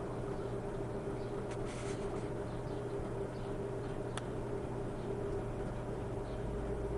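A steady low hum under a hiss of background noise, with a few faint high chirps and a single sharp click about four seconds in.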